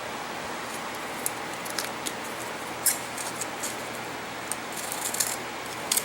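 Scattered light clicks and clinks of small metal objects being handled, several in quick succession near the end, over a steady background hiss.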